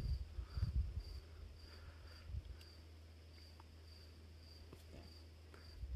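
A cricket chirping steadily, a short high chirp about twice a second. A low rumble runs under it for the first couple of seconds.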